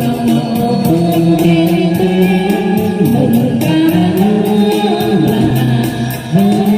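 Vietnamese quan họ Bắc Ninh folk song, sung by a man and a woman together, holding long, wavering, ornamented notes.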